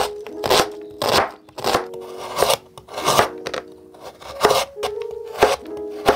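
Chef's knife cutting onion and then slicing carrot on a plastic cutting board: a steady run of crisp blade strokes hitting the board, about one every half second or so. Soft background music plays underneath.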